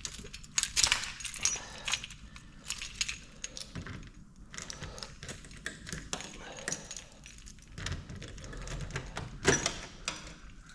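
Keys jangling and clicking in the lock of a Snap-on toolbox as it is unlocked, with metal rattles and a louder clunk near the end.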